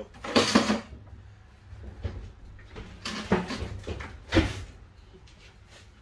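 Knocks and clatter of things being handled and set down, in three bursts: about half a second in, around three seconds in, and just after four seconds.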